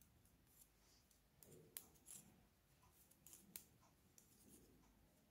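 Faint, scattered clicks of knitting needles as stitches are worked by hand, with soft handling of the yarn; a few clicks come about a second and a half in and again a little after three seconds.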